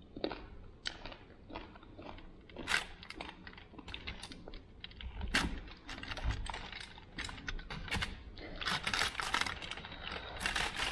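A whole roast rotisserie chicken being pulled apart by hand on aluminium foil: irregular crackles of skin and meat tearing, and the foil crinkling. The crinkling is dense for a second or so near the end.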